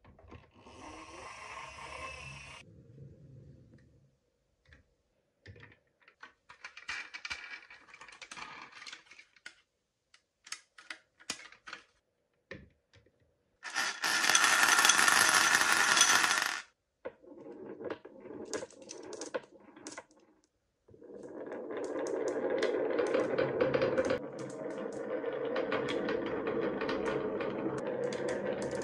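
Glass marbles clicking and clattering. About halfway through comes a loud rattle of marbles in a ceramic bowl. Near the end, marbles roll down a wavy wooden track in a steady rumble.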